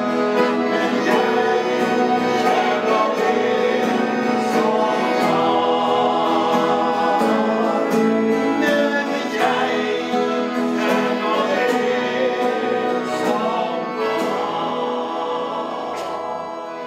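Two men singing a Norwegian gospel song in harmony, accompanied by acoustic guitar and accordion. It ends on a held chord that begins to fade at the very end.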